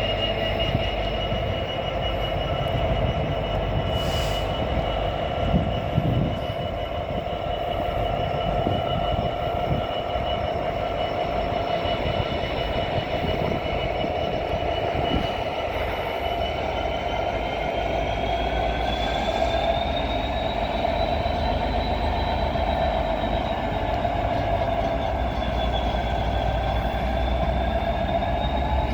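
Diesel train running through the station: a steady low rumble with high, thin squealing tones over it that slowly rise and fall in pitch.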